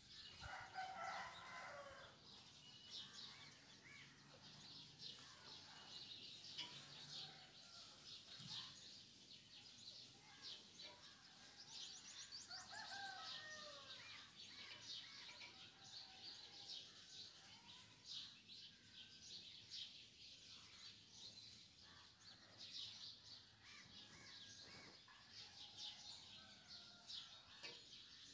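Faint crackling and ticking of fingertips and fingernails working through short dry hair, picking out lice and nits. A rooster crows at intervals in the background.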